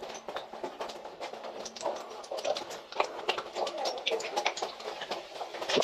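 Footsteps over loose slate, the pieces knocking and clinking against each other in an irregular patter.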